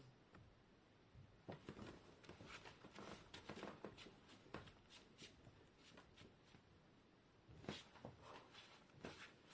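Faint scattered clicks and rustling of a plastic laptop screen bezel being pressed by hand into its clips, in two spells with a quiet stretch between.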